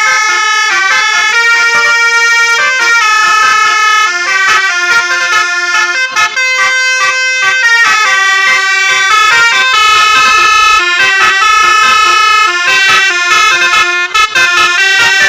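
Telolet 'basuri' bus horns playing melodies, a continuous run of loud pitched notes stepping up and down, at times overlapping.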